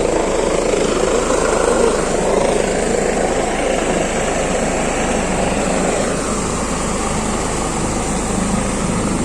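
Helicopter coming in to land close by, its rotors and engine making a loud, steady noise.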